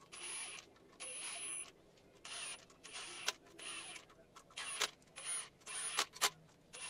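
Cordless power driver spinning the camshaft bearing-cap bolts on an N14 cylinder head down snug before torquing. It runs in a string of short bursts of about half a second each, with a few sharp clicks in between.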